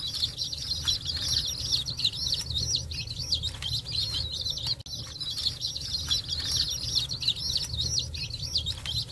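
A brood of baby chicks, with a few ducklings among them, peeping constantly: many high chirps overlapping without a break, over a steady low hum.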